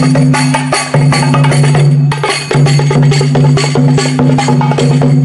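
Loud percussion-led music: quick, regular wooden-sounding strikes over a steady low held tone.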